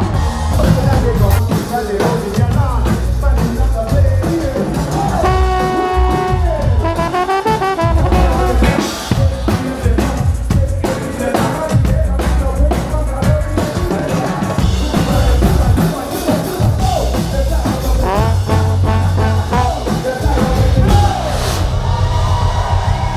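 Live ska band playing loud, with drum kit, heavy bass and singing, and a trombone close to the microphone. About six seconds in, a held note slides down in pitch.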